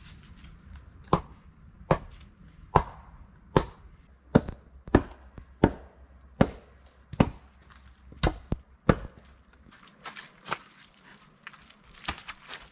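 Repeated sharp wooden knocks, about one a second and a dozen in all, as a heavy log is pounded down against the ground and the poles of a log walkway. They stop about nine seconds in, and fainter knocks and footsteps follow.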